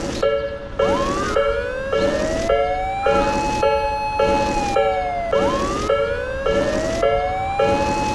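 Japanese level-crossing alarm dinging steadily about twice a second, with a siren wailing over it twice: each wail rises over about two seconds, holds, then sinks before starting again.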